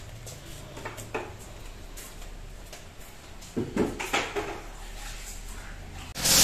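Scattered light clicks and knocks over a low hum, then near the end a paint spray gun starts with a sudden loud, steady hiss as a colour coat is sprayed on the car body.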